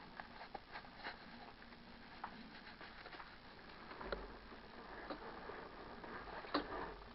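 Faint, muffled motorcycle sounds: scattered small clicks and taps, with a low rumble coming in about four seconds in as the bike starts to roll, and one sharper knock near the end.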